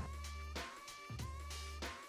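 Background music with held deep bass notes, a melody line and a few drum hits.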